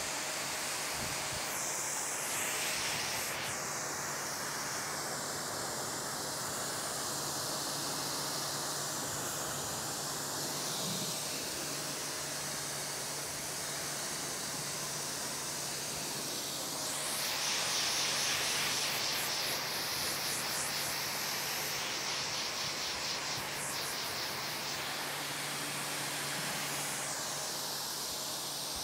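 Pressure washer spraying water into an open car engine bay to rinse off foam: a steady hiss of spray with a steady low hum underneath. The hiss grows louder and brighter about two-thirds of the way through as the jet moves onto other parts.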